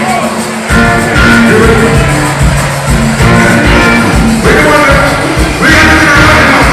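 Live rock band playing loudly with a singer's voice over the instruments, heard through a phone's microphone.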